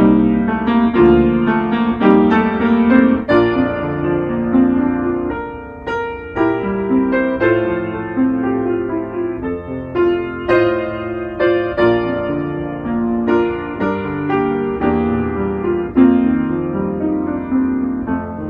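Instrumental piano postlude closing the worship service: melody notes and chords struck and left ringing.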